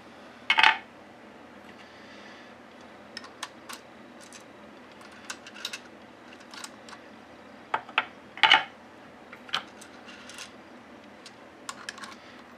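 Hand priming tool seating new primers in brass rifle cases: a run of small metal clicks and taps as cases go into the shell holder and the lever is squeezed. Two louder clacks, about half a second in and about eight and a half seconds in, as primed brass cases are set into a plastic loading block.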